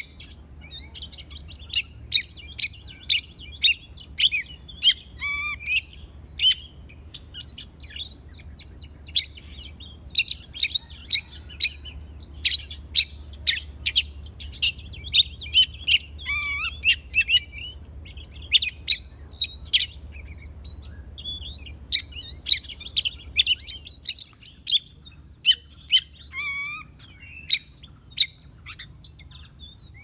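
Oriental magpie-robin calling and singing: many sharp chip notes mixed with short warbled and whistled phrases, coming in bursts with brief pauses between.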